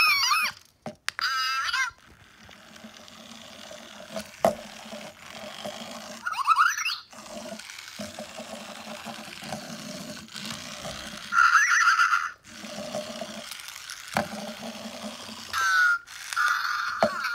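Zhu Zhu Pets electronic toy hamster chirping and squeaking, then its small wheel motor running with a steady hum as it scoots along. Short bursts of warbling squeaks cut in three times over the hum.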